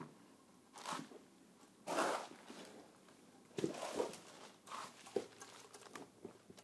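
Faint handling sounds: several short rustles and small knocks as a turbocharger and its oil return line are handled over a plastic sheet while the return-line gasket is lined up.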